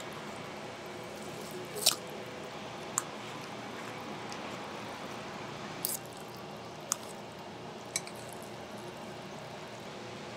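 Restaurant room tone: a steady hum with five short, sharp clicks spread through it, the loudest about two seconds in.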